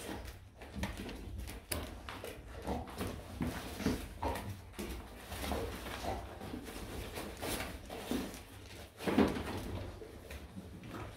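Rottweilers and a smaller dog moving about on a tiled floor and sniffing at a person lying still, with claws clicking on the tiles and short dog noises, the loudest about nine seconds in.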